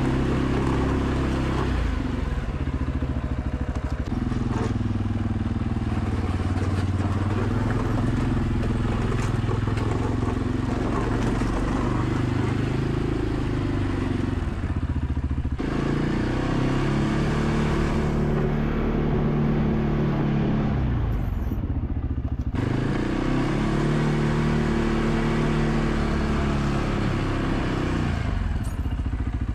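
ATV engine running under load while plowing snow, its pitch rising and falling repeatedly as the machine speeds up and slows down, most clearly in the second half.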